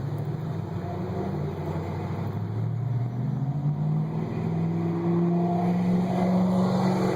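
Ford Mustang GT's 4.6-litre V8 running through Thrush welded chamber mufflers on dual exhaust. The exhaust note climbs slowly and steadily in pitch and grows louder as the engine speed rises.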